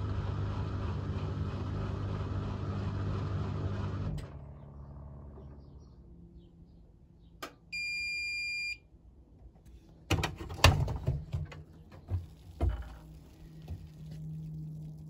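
Hotpoint Ultima Extra WMA64 washing machine running with water in the drum, cutting off about four seconds in. About eight seconds in, the machine gives one long end-of-cycle beep, followed by a run of clicks and clunks as the door is released and opened.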